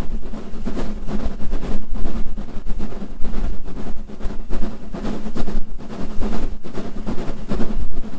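Southern Railway S15 class 4-6-0 steam locomotive working hard up a steep gradient, its exhaust beating in a quick, steady rhythm over a steady low rumble.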